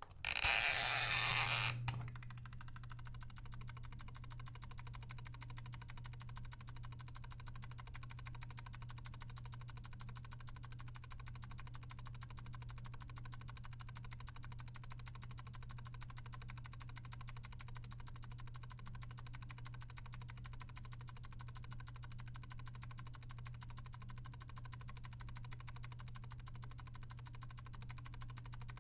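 Bathroom exhaust fan switched on by its timer: a short, loud burst of mechanical noise from the timer being turned ends in a click about two seconds in. The fan then runs with a steady hum.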